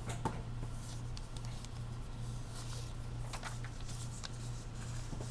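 Sheet of notebook paper being handled and folded: faint crinkles and rustles scattered through, over a steady low hum.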